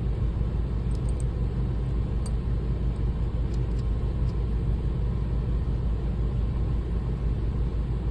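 Electric shear-sharpening machine running with a steady low hum, with a few faint light clicks over it.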